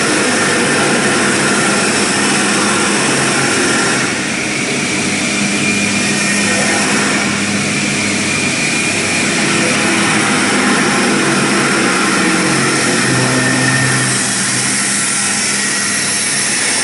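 CNC lathe running: a loud, steady mechanical whir and hiss over a low hum, shifting slightly about four seconds in and again near the end.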